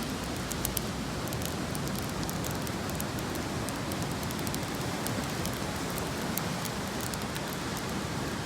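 Beach bonfire crackling, with many small sharp pops over a steady rushing background noise.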